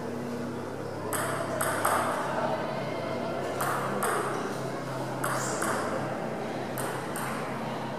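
Table tennis ball bouncing: light sharp clicks, mostly in pairs, every second or so, over a steady low hum.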